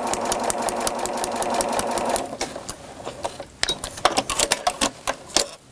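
Domestic sewing machine stitching quickly through fabric and foundation paper, motor and needle running steadily for about two seconds before stopping. A scatter of light clicks follows.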